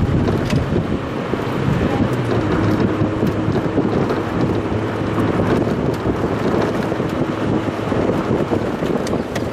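Mazda Roadster driving downhill, sped up: steady wind and road noise fill the sound, with the engine's note faint beneath it.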